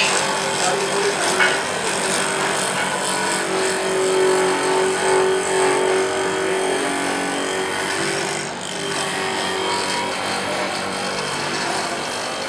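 Grinding wheel of a tap re-sharpening machine grinding the flutes of a steel tap: a steady, harsh grinding with a wavering whine, with a short sharp tick at the start.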